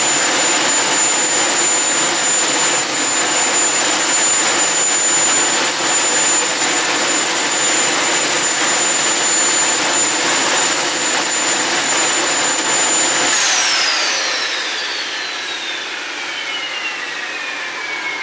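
Homemade turbojet engine (HX Monster mark 2) running steadily with a loud rushing roar and a high whine. About 13 seconds in it is shut down, and the whine falls steadily in pitch as the turbine spools down.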